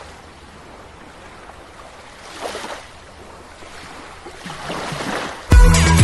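Sea waves washing, swelling twice, then electronic dance music with a heavy beat comes in suddenly near the end and is much louder.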